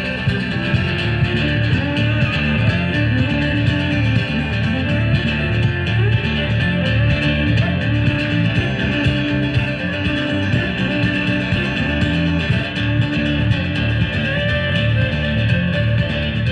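Live band playing an instrumental passage with no singing: guitar over a bass line and a steady beat.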